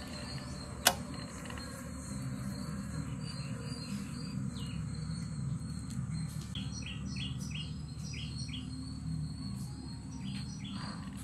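Outdoor ambience: insects buzzing steadily at a high pitch, with a bird giving a quick series of chirps partway through. A single sharp click about a second in.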